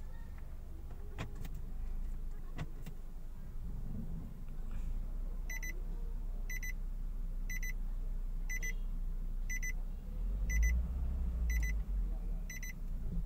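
Nissan Latio engine running steadily with the automatic transmission in reverse, driving the raised wheel, which shows the repaired transmission now pulls in R. From about five seconds in, a dashboard warning chime beeps about once a second, eight times.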